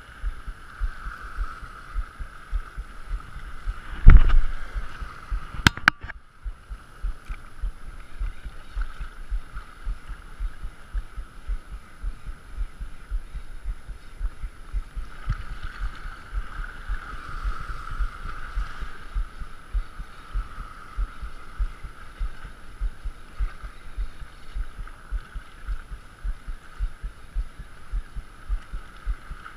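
Spinning reel being cranked to retrieve a lure: a steady whir with a rhythm of low thumps. There is one loud knock about four seconds in, followed by a couple of sharp clicks.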